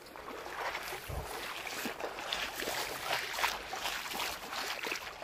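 Shallow seawater splashing and lapping around the angler, with wind buffeting the microphone, and a single low thump about a second in.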